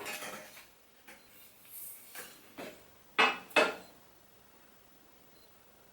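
Metal motorcycle parts clinking and knocking as they are handled and fitted, with two sharp knocks close together about three seconds in.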